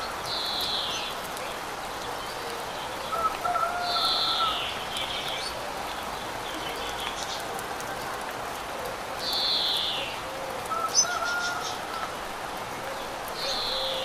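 Birds singing over a steady rush of water: a high, falling call repeats four times, about every four seconds, with softer, lower warbling notes between.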